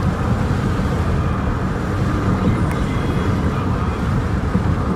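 Steady low rumble of a moving vehicle, even throughout with no distinct horn, bell or impact.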